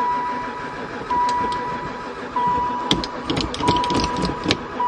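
A van's dashboard warning chime beeping as a steady single tone that restarts about every second and a quarter, with the ignition on but the engine dead. A run of light clicks and rattles comes in the second half.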